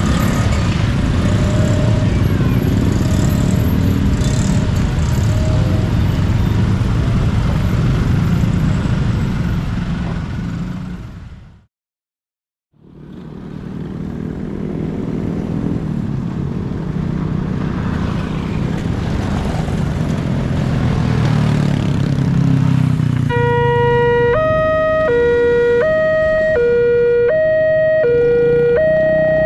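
Motorcycle and road traffic running at a railway level crossing, then after a cut, road vehicle rumble. In the last six seconds a level-crossing warning alarm starts: an electronic signal alternating between a low and a higher tone in a steady rhythm, sounding as the red light comes on to warn of an approaching train.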